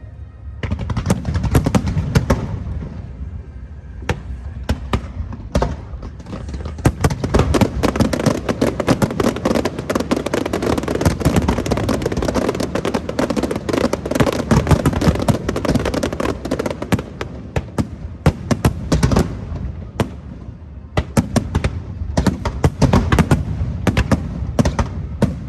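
Fireworks going off in a barrage of rapid cracks and bangs, packed into a dense continuous crackle through the middle and thinning to separate bursts near the start and end.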